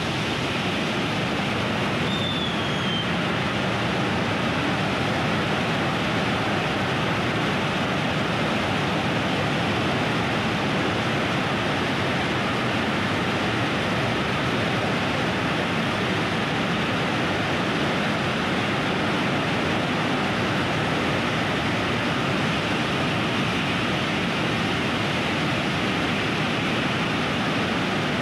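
Agnikul's electric motor-driven semi-cryogenic rocket engine firing on a test stand: a steady, even rushing roar that holds its level throughout.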